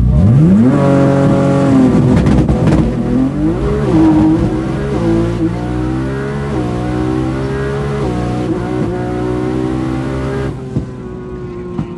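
Nissan GT-R R35 Alpha 24X's twin-turbo VR38DETT V6 launching hard from a standstill and accelerating flat out through the gears. The pitch climbs steeply off the line, then rises in each gear and drops at several quick upshifts, heard from inside the car. About ten and a half seconds in the throttle is lifted, and the engine falls away to a lower, steady drone.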